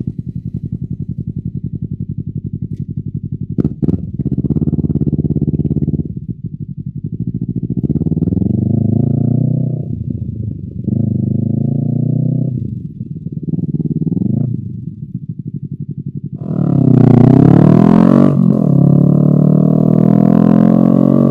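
Honda CBR250RR's parallel-twin engine through an Akrapovic exhaust, first idling with an even pulse. A sharp click comes a few seconds in as it is put into gear. It then pulls away, the revs rising and falling several times as it shifts up through the gears, and runs louder and higher-revving near the end.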